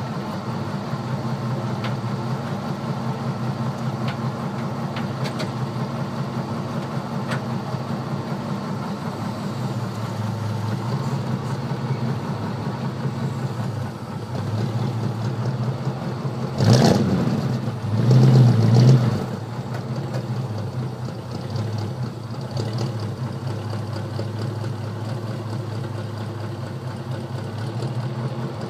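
Dodge 360 V8 engine of a 1971 Charger idling steadily, heard close to its exhaust muffler under the car. About two-thirds of the way through, the throttle is blipped twice in quick succession, the note rising and falling each time before settling back to idle.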